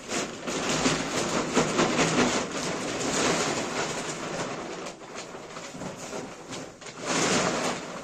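Coarse rustling and scraping of sheep feed being stirred and mixed by hand, with a louder burst about seven seconds in.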